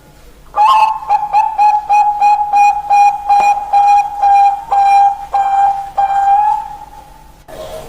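Mynah bird whistling one steady, fairly high note over and over, about four pulses a second for some six seconds, then stopping.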